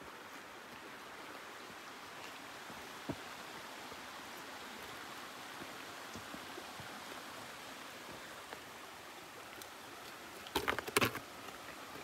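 Mountain stream flowing, a steady rush of water. About ten and a half seconds in, a short cluster of sharp clicks and knocks stands out above it.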